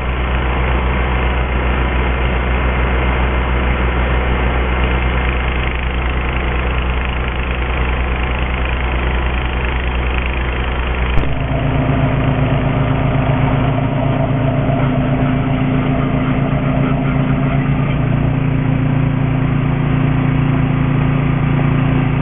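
An engine idling steadily. About eleven seconds in there is a click, and the sound changes to a fuller, more pulsing engine note.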